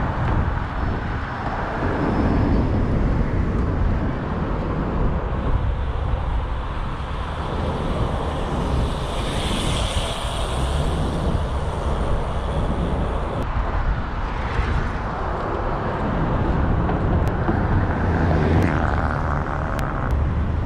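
A car driving, with a steady rumble of engine and road noise. A louder hiss swells and fades about ten seconds in.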